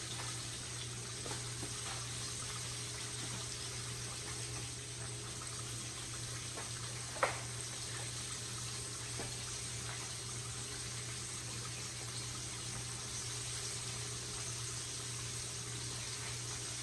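A whole red snapper frying in oil in a cast iron skillet: a steady sizzle, with one sharp click about seven seconds in.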